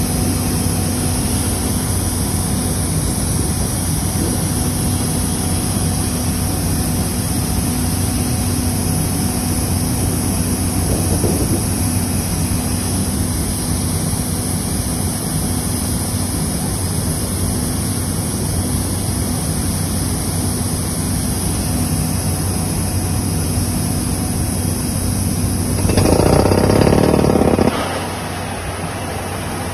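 Truck-mounted water well drilling rig's engine running steadily, with a louder rushing burst about two seconds long near the end.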